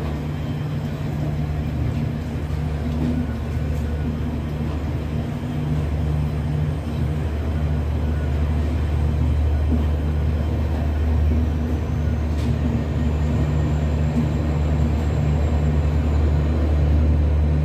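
Passenger train pulling slowly out of a station, a steady low machinery drone that grows a little louder in the second half.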